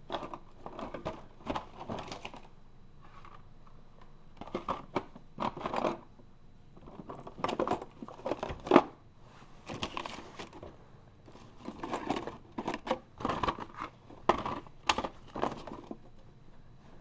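Hands rummaging through small objects, with irregular clicks, knocks and rustling as things are pushed around and picked up.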